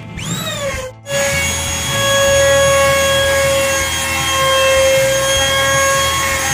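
Electric trim router cutting a groove along a straightedge in an HPL-laminated door panel: a falling motor whine in the first second, then from about a second in the router runs at a steady high whine as it is pushed along the cut.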